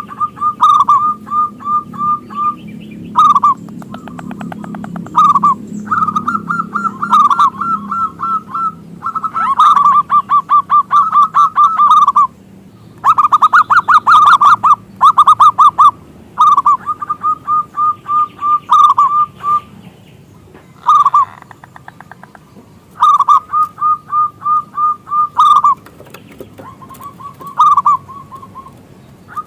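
Zebra dove (perkutut) singing: phrase after phrase of rapid, rolling cooing notes, each phrase a second or two long with short pauses between.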